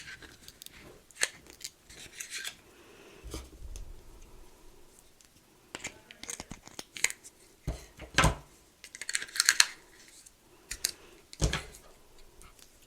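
Close-miked plastic packaging being handled and peeled: scattered crackles and sharp clicks, a soft thud about three seconds in, and a brief rustle near the end.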